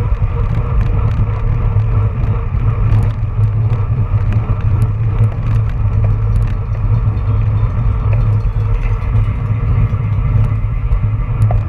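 Wind buffeting the microphone of a handlebar camera on a road bike racing at about 19 mph, a steady loud rumble with tyre and road noise under it and a few small clicks and rattles from the bike.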